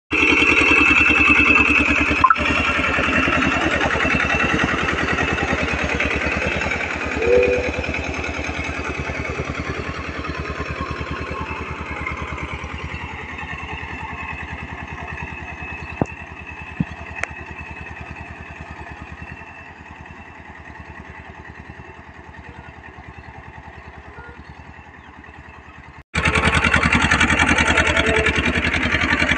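TAFE 30 DI tractor's diesel engine running steadily under load while pulling a reversible mouldboard plough, fading slowly as the tractor moves away. About 26 seconds in it cuts suddenly to the engine heard much louder and closer.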